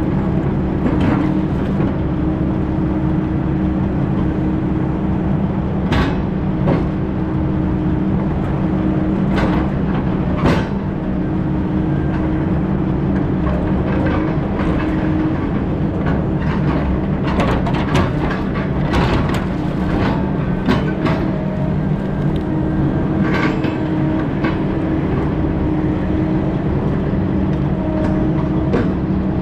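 Heavy diesel logging machine running steadily under load, with scattered metallic clanks and knocks, several of them close together about two-thirds of the way through.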